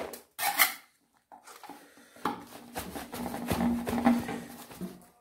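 Metal garden trowel scraping soil off a hammered metal tray with a sharp scrape about half a second in. Then crunching and rustling from about two seconds in, as soil is tipped into a woven plastic sack and pressed down around the cutting.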